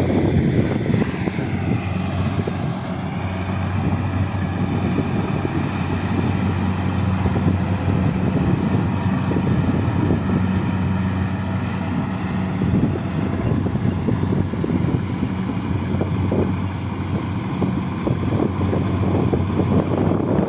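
Kubota combine harvester running steadily while harvesting rice, a continuous engine drone under the noise of the harvesting machinery.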